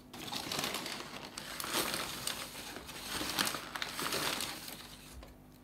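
Large paper flour sack crinkling and rustling as a hand and small plastic tub dig into it to scoop out flour: an irregular crackling that stops about five seconds in.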